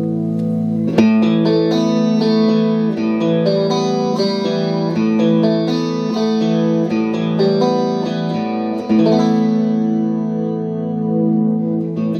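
Clean electric guitar played through a Boss CE-5 Chorus Ensemble pedal into two Roland JC-120 amps in stereo. A held chord gives way about a second in to a run of picked notes and chords, and a new chord struck about nine seconds in rings out.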